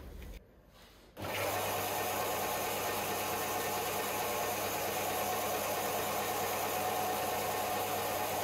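Belt grinder running steadily. Its motor gives a constant hum under a dense, even abrasive-belt noise that comes in suddenly about a second in.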